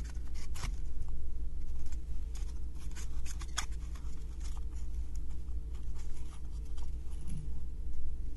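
Thin wooden 3D-puzzle pieces clicking and rubbing against each other as hands turn and press them into a partly built wooden model, in scattered sharp clicks and scratches. A steady low hum runs underneath.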